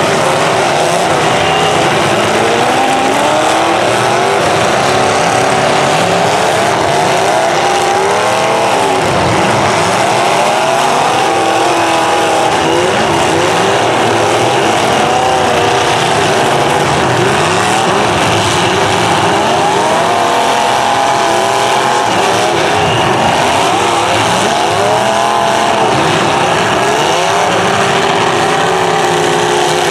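Several demolition derby cars' engines revving at once, their pitches rising and falling over and over as the cars accelerate and back off.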